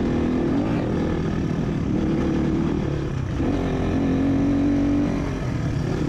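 Motorcycle engine running under way, its pitch rising and falling with the throttle, dipping about three seconds in and climbing again.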